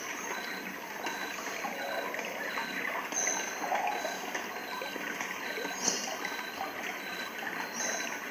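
White noise machine playing its recorded running-stream sound: a steady trickling, flowing water hiss.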